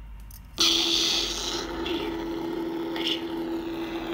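Ultra Sabers Padawan Stellar Gold apprentice lightsaber's Nano Biscotti v4 sound board igniting through the hilt's speaker: a sudden loud hissing ignition about half a second in, settling into a steady saber hum with one held low tone. The sound font is one the owner made himself.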